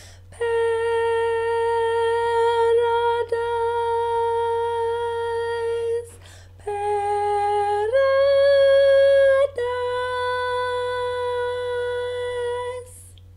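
A woman singing alone, holding long, steady notes with short breaths between them: one long note, then a brief lower note and a louder higher one, then back to the first pitch, held until shortly before the end.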